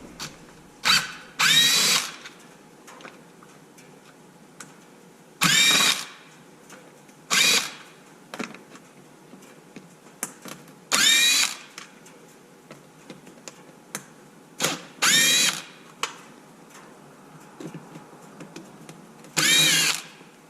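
Cordless electric screwdriver or drill running in about eight short spurts, its motor whine rising in pitch as it spins up each time, backing out the rusted bolts of a cover on an RC truck.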